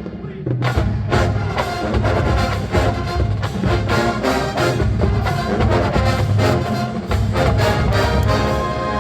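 A college marching band playing: brass (trumpets and trombones) over drums and percussion, full and loud.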